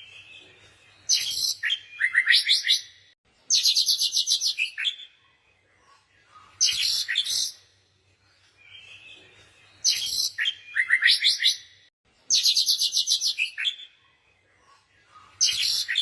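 Songbirds chirping in quick high trills and twitters, phrase after phrase with short pauses between.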